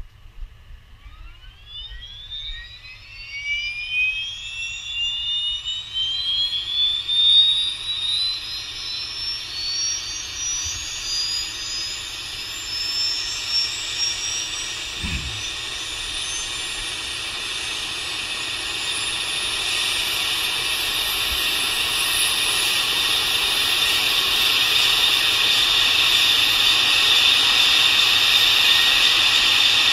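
Leonardo AW139's PT6C-67C turboshaft engine starting: a whine rises steeply in pitch over the first several seconds of the start cycle, then settles into a steady high whine with a growing rush of hiss, getting louder throughout as the turbine spools up.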